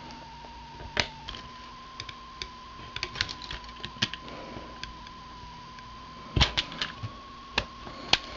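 Scissors cutting thin copper sheet: irregular sharp clicks and snips as the blades close, a few of them much louder.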